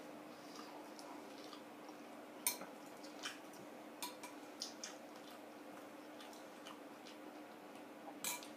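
A metal spoon clinking against a glass bowl of stew in a few scattered, sharp ticks, the sharpest about two and a half seconds in and another near the end.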